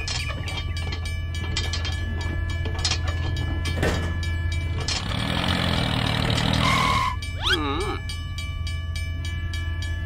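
Battery-powered toy train running on plastic track: a steady motor hum under a rapid, even clicking. About seven and a half seconds in, a warbling electronic tone sweeps up and down.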